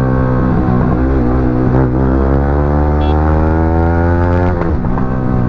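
Yamaha R15 V3's 155 cc single-cylinder engine through an aftermarket exhaust, under way, with the revs climbing slowly under throttle, then dropping sharply about four and a half seconds in and holding steady.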